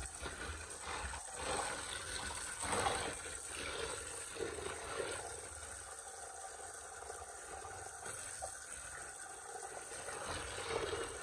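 Water splashing and running irregularly during washing.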